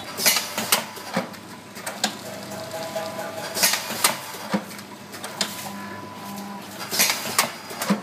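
Guangzhou Mingke liquid sachet packing machine clattering, with sharp clacks at irregular intervals over a steady low motor hum.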